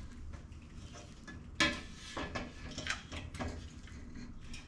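Metal knocks and clinks from a two-stroke expansion chamber being worked into place on the dirt bike's cylinder: several sharp knocks, the loudest about a second and a half in.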